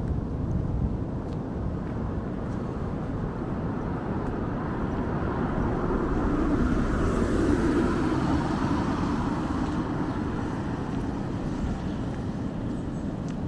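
Town street ambience with a motor vehicle passing by, growing to its loudest about seven seconds in and then fading away.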